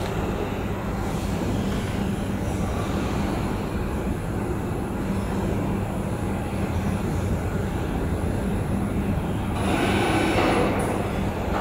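Heavy-duty tube laser cutting machine running: a steady mechanical hum with a low drone. About ten seconds in, a louder hissing rush lasts about a second.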